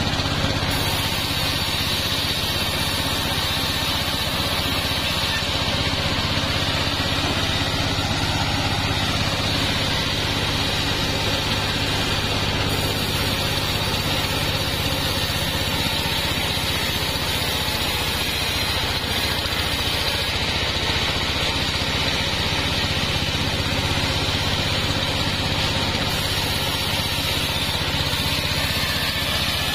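Engine-driven mobile bandsaw mill running steadily while sengon logs are fed through the blade and sawn.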